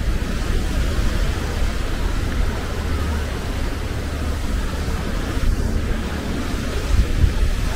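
Wind buffeting the microphone: a steady low rumble over a hiss of outdoor seaside ambience.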